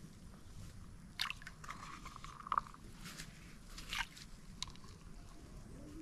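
A few irregular crunchy clicks and scrapes from hands working fish bait in a small plastic bowl. The sharpest click comes about two and a half seconds in.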